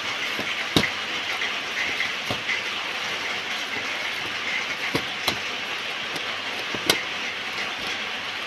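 Plastic fish bag crinkling and a rubber band being worked off its neck, with a handful of sharp clicks, the loudest about a second in and near the end, over a steady background hiss.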